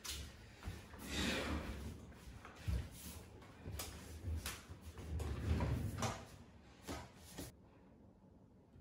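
Knocks, clicks and rustles of handling at a desk as a chair is pulled out and sat in and small items are picked up, ending abruptly about seven and a half seconds in.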